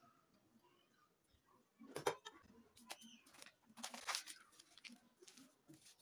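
Faint scattered knocks and scrapes of a kitchen knife and hands working on a wooden tabletop, in short clusters about two seconds in and again around four seconds in.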